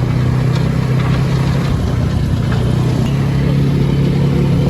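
Engine running with a steady, loud low hum, while riding a motor vehicle or boat.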